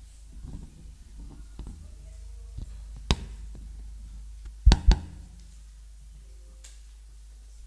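Microphone on a music stand being handled and bumped while the stand is adjusted: scattered light knocks and then sharp thumps, one about three seconds in and a louder pair near five seconds, over a steady low hum from the sound system.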